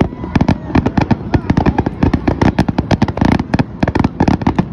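Fireworks display: a rapid, irregular barrage of launches and shell bursts, several sharp bangs a second.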